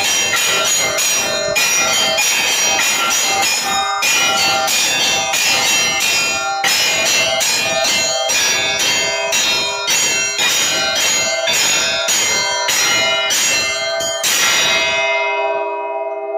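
Church bells rung in the Russian style, several rapid strikes a second over many ringing tones. The strikes stop near the end, leaving the lower bells humming as they die away.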